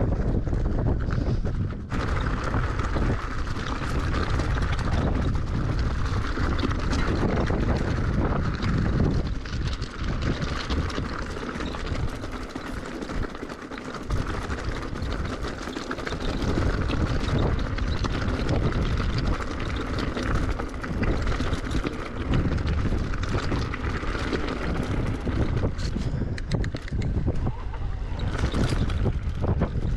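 Wind rumbling on the camera's microphone while an electric mountain bike is ridden over rough trail, with the bike rattling throughout; the rumble eases for a few seconds in the middle.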